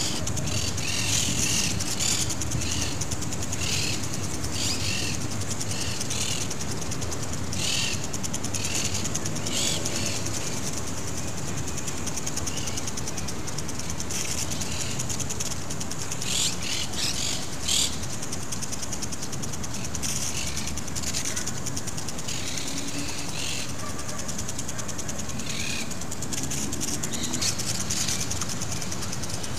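Lawn sprinkler spraying: a steady hiss of water with a rapid, fine ticking, and short, irregular bursts of sharper spray noise throughout.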